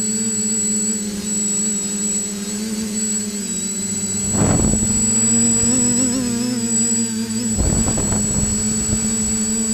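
TBS Discovery quadcopter's electric motors and propellers humming steadily in flight, the pitch wavering slightly, with a thin high whine above. Two rushes of wind on the microphone come about four and a half and eight seconds in.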